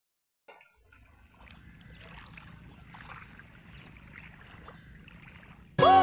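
Faint sloshing and small splashes of seawater around a swimmer in the water. Near the end, loud electronic music cuts in suddenly with a swooping, falling tone.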